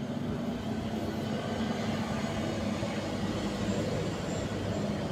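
Steady engine rumble with a low hum running under it, as from a passing motor.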